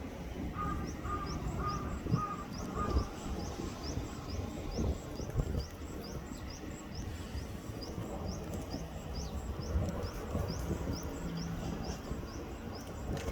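Outdoor ambience: a high, short rising chirp repeated evenly about twice a second, over a steady low rumble. In the first few seconds a brief run of about five lower, shorter notes joins in.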